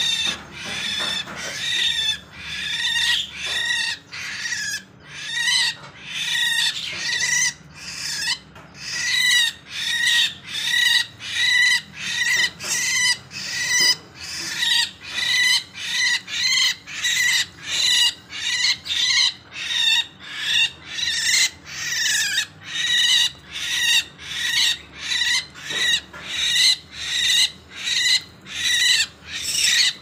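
Javan myna (jalak kebo) squawking harshly over and over while held in a hand, about one and a half calls a second. The calls grow steadier and louder after the first several seconds.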